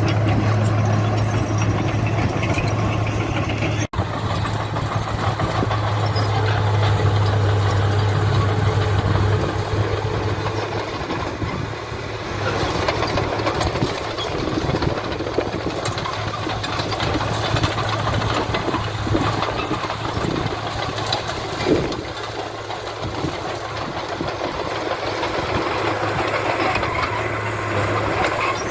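Diesel engine of heavy earthmoving machinery (dump truck or bulldozer) running with a steady low drone. The sound cuts out for an instant about four seconds in, and there is a single sharp knock a little past twenty seconds.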